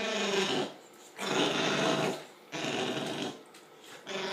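An animal snoring: four raspy breaths in a steady rhythm, each under a second long.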